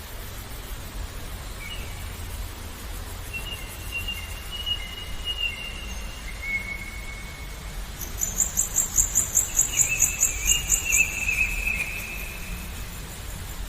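Birds calling in long, drawn-out whistled notes, with a fast, high pulsing trill of about five beats a second lasting some three seconds partway through, over a steady low background rush.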